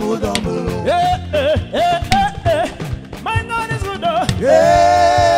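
Live gospel praise music: a band plays under a lead singer whose melodic lines bend and slide. About four and a half seconds in, a long note is held.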